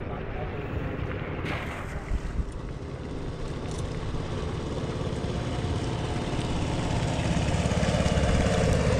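Small boat engine running steadily, growing louder as it draws nearer, with wind rushing over the microphone.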